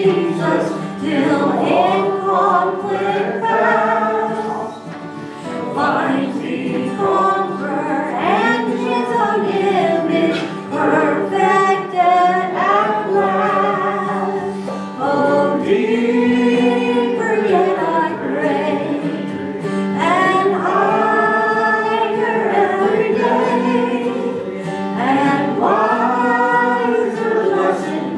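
Choir singing a slow gospel worship song, with a steady low instrumental note held underneath.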